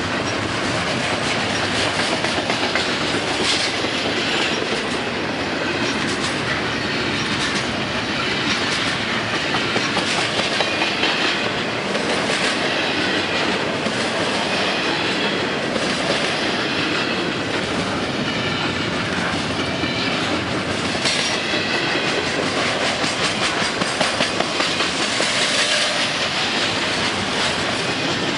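Double-stack intermodal freight cars rolling past at speed: a steady noise of steel wheels on the rails, with short high wheel squeals now and then.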